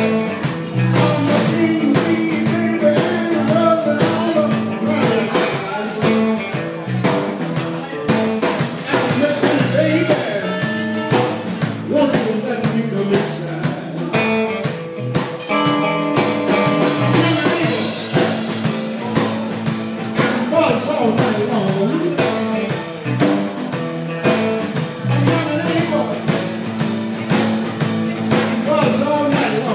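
Live electric blues band playing: electric guitars and bass over a drum kit keeping a steady beat.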